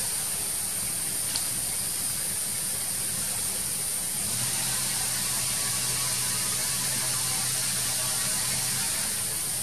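Steady outdoor background noise: a constant high-pitched hiss, joined by a low steady hum from about four to nine seconds in.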